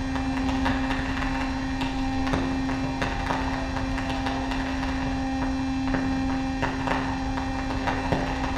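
Improvised electronic noise music: a steady low hum drone over rumbling noise, with scattered clicks and crackles.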